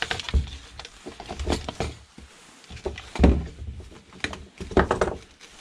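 Hard plastic vacuum-cleaner housing parts and the motor being handled and knocked against a wooden workbench: a series of irregular knocks and clatters, loudest about three seconds in.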